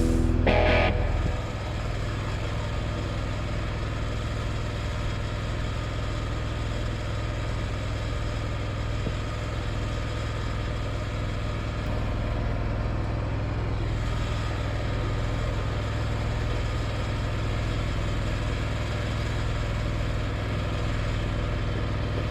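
Portable bandsaw mill's engine running steadily at an even pitch.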